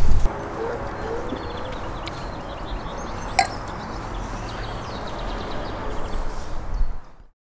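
Outdoor background noise: a steady hiss over a low rumble, with a thump at the very start and a single short knock about three and a half seconds in. It cuts off abruptly to silence just before the end.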